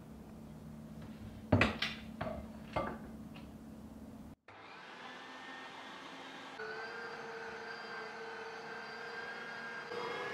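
A few sharp knocks and clinks, then an electric meat grinder running with a steady motor whine as chunks of raw beef are fed through it and minced; the whine steps up a little partway through.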